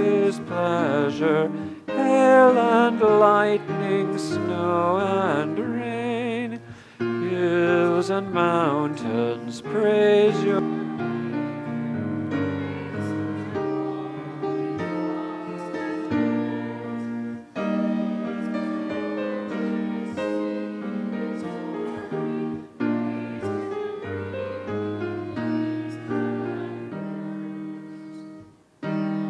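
A hymn sung by one voice with vibrato, accompanied by piano. About ten seconds in the singing stops and the piano plays on alone, breaking off briefly near the end before starting again.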